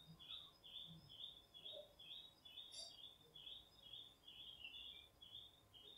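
A bird chirping faintly, one short high note repeated about two or three times a second.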